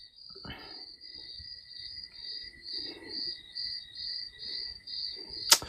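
A cricket chirping in an even, fast rhythm, about two to three chirps a second, with a soft breath about half a second in and a sharp click just before the end.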